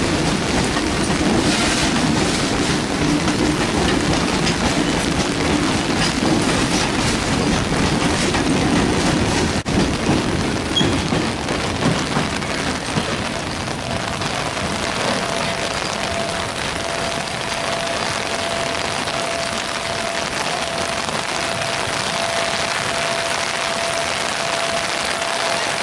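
Heavy rain pouring steadily. For the first ten seconds it is mixed with the low rumble of broad-gauge freight wagons rolling past close by. After a sudden break only the rain remains, with a thin steady tone coming in about halfway through.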